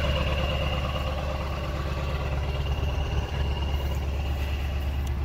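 1999 Ford F-350's 7.3 L Power Stroke turbo-diesel V8 idling steadily with an even diesel clatter, shortly after a cold start.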